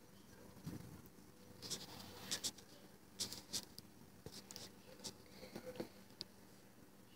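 A kitten's paws and claws batting and scratching at fingers: faint scratchy scuffles in several short bursts.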